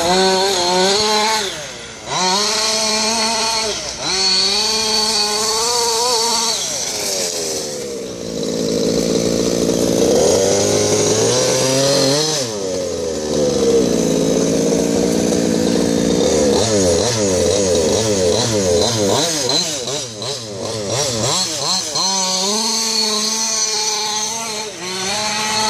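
Losi 5ive-T RC truck's Zenoah G290RC 29cc two-stroke petrol engine revving up and down in repeated bursts, settling to a lower, steadier run for several seconds in the middle before revving again.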